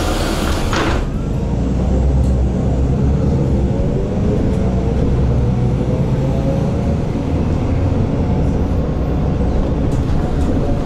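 City bus engine running and pulling away, heard from inside the cabin, with a whine that rises in pitch as the bus gathers speed. A burst of hissing air from the bus's pneumatics cuts off about a second in.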